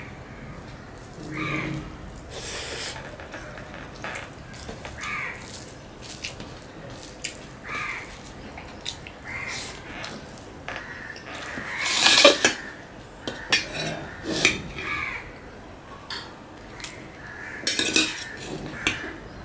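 Eating sounds at a stainless-steel plate: fingers mixing rice and greens click and scrape against the metal, between soft chewing. The loudest metal clatter comes about two-thirds of the way through, and near the end a steel spoon scrapes a steel bowl as rice is scooped out.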